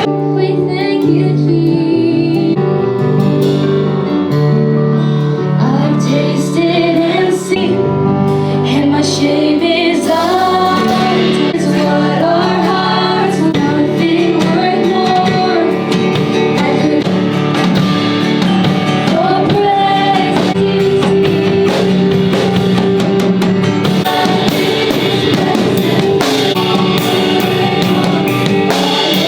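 Worship song with singing over guitar, bass and drums; the drums grow busier near the end.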